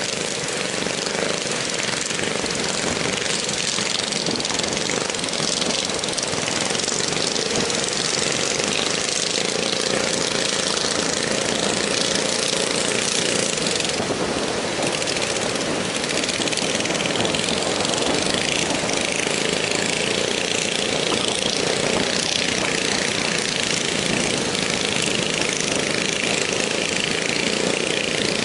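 Steady rush of surf and wind, with the engines of motorised outrigger fishing boats running underneath as they push through the breaking waves.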